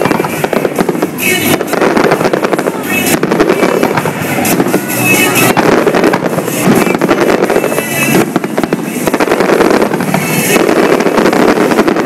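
Aerial fireworks shells bursting and crackling in quick, dense succession, one on top of the next, with music playing underneath.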